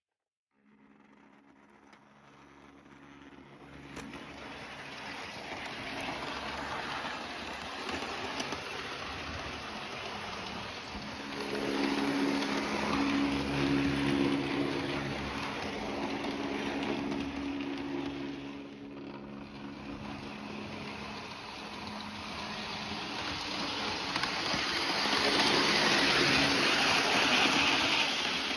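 Hornby model GWR class 43 HST running round the track: the steady hum of its electric motor with the rumble of wheels on the rails. It fades in from silence and grows louder as it passes close, loudest about twelve seconds in and again near the end, then cuts off.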